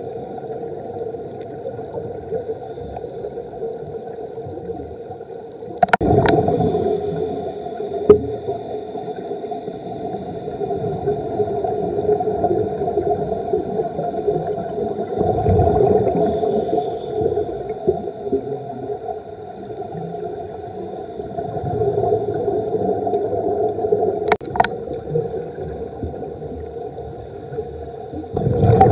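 Underwater audio through a dive camera's housing: muffled gurgling with a scuba diver's exhaled regulator bubbles surging every several seconds, and a few sharp clicks.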